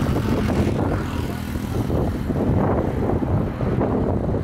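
Wind buffeting the microphone: a loud, irregular low rumble that swells and eases in gusts.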